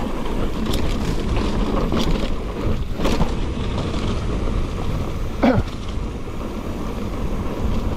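Wind rushing over an action camera's microphone on a moving mountain bike on a trail, with a few short knocks and rattles from the bike. A short squeak falls in pitch about five and a half seconds in.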